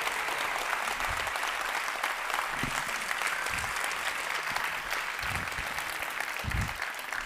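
A large audience clapping hard in sustained applause, easing off slightly near the end.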